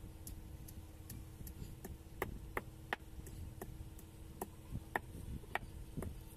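Wooden pestle pounding garlic on a flat stone slab: a run of sharp knocks, about two a second. The knocks are faint at first and grow sharper from about two seconds in.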